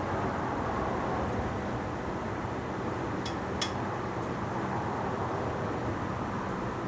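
1929 Chrysler engine idling steadily at running temperature. Two sharp clicks come a little past three seconds in, about a third of a second apart.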